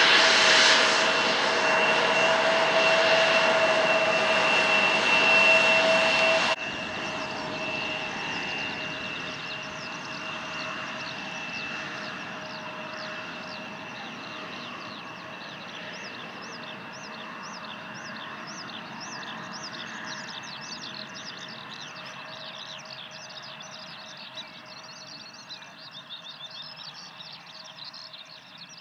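Embraer 170 regional jet's turbofan engines running at low power as it taxis, a steady whine with a held high tone. The level drops sharply about six and a half seconds in, then fades slowly as the jet moves away.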